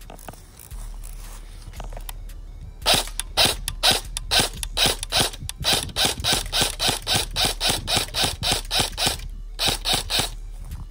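Airsoft electric gun (AEG) firing a rapid string of shots, about four to five a second, each a sharp crack of the gearbox and piston; the run stops about 9 s in, and three more shots follow after a short pause.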